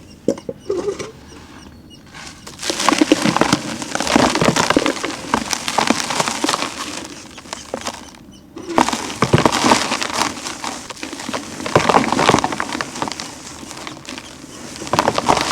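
Dry, brittle concrete-like chunks being crushed and crumbled, giving a gritty crunching and crackling. It comes in four bursts with short pauses between them, and the first burst is the longest.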